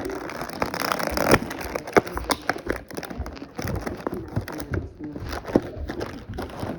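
Plastic blister packaging being handled and crackling, with sharp clicks and snaps as small diecast metal figures are worked out of their tray.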